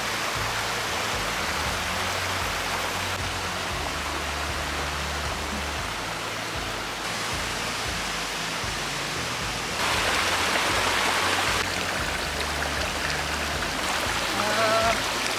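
Small mountain waterfall and rocky stream rushing, a steady water noise that shifts in level with each shot and is louder for a couple of seconds about ten seconds in.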